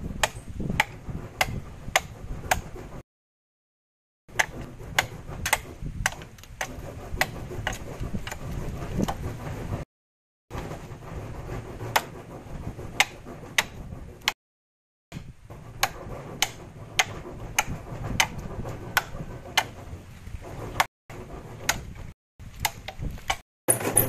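Repeated sharp knocks or taps, roughly two a second, over a low rumble. Several abrupt cuts to silence break them up.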